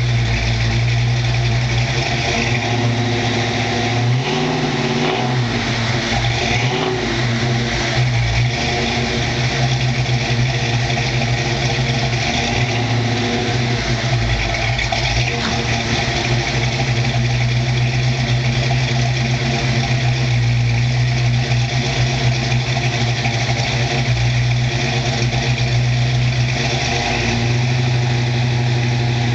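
Ford Mustang GT's 347 cubic-inch stroker small-block V8 idling through Flowmaster mufflers on the freshly built engine's first start. The idle is steady, with a brief rise and wavering in the revs about four seconds in before it settles back.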